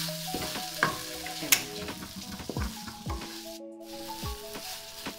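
Wooden spatula stirring and scraping vermicelli around a nonstick wok, with a light sizzle from the hot pan and a few sharp knocks of the spatula, the loudest about a second and a half in.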